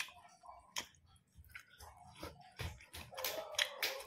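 Close-up chewing and biting of crispy fried chicken: scattered crunches and wet mouth clicks, coming thicker near the end.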